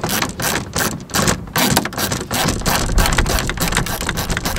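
Hand ratchet clicking rapidly as it is swung back and forth to run in a long bolt, several clicks a second in an uneven rhythm. Wind rumbles on the microphone underneath.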